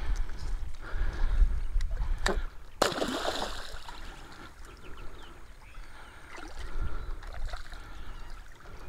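A single sharp splash about three seconds in as a released catfish drops into shallow water, trailing off in a short wash of water sound. Before the splash, wind rumbles on the microphone.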